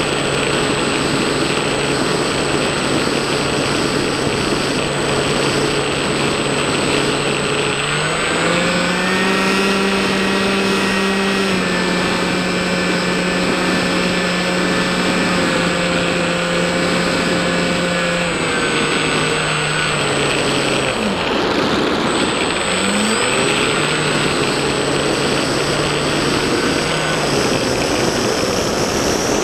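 Buzz of a Bixler-type foam RC plane's electric motor and propeller, heard from the onboard camera with wind rushing past. The pitch steps up about eight seconds in as the throttle is opened. It holds there for about ten seconds, then drops back to the lower cruise hum, with a brief rise once more near the end.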